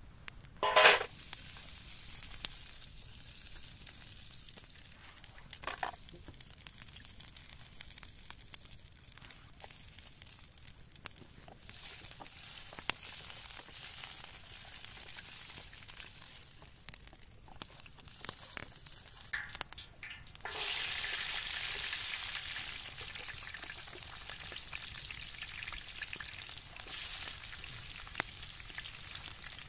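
Chopped onions frying in oil in a wide metal pan over a campfire, sizzling with the scrape of a wooden spatula stirring them. The sizzle jumps much louder about twenty seconds in, as the pan fills with more onions. A brief loud knock comes about a second in.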